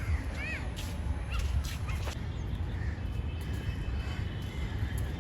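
Crows cawing, with a few short bird chirps, over a steady low rumble.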